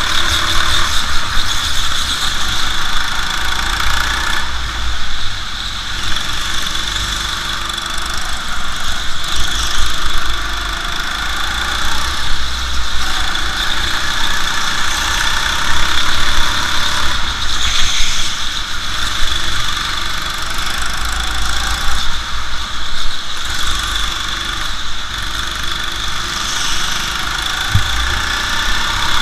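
Go-kart engine running under the driver during a lap, its pitch and loudness rising and falling every few seconds as the throttle opens on straights and eases into corners.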